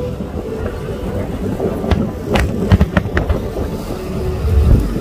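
Aerial fireworks bursting, with a quick run of sharp cracks about two to three seconds in over a steady low rumble.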